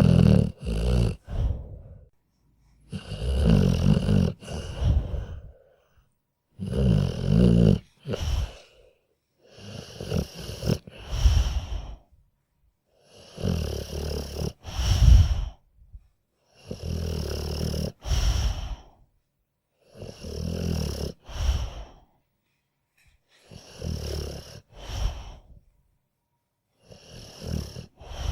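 Sleeping dog snoring steadily, one snoring breath roughly every three seconds with short silences between.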